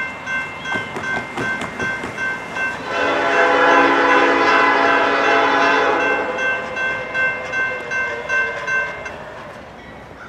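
Grade-crossing warning bell ringing rapidly, about three strikes a second. About three seconds in, the approaching locomotive's Nathan P5 air horn sounds one long blast of about three seconds, louder than the bell.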